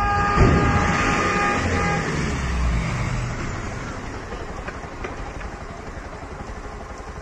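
Vehicle horn held on one steady note for about two seconds, over the low rumble of a box truck's engine as it drives past and fades away, with a single knock about half a second in.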